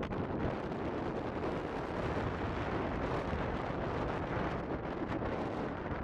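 Strong storm wind blowing hard across the microphone: a steady, loud, rumbling rush of noise.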